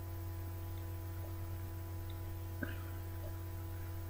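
Steady electrical hum, with one faint click about two and a half seconds in.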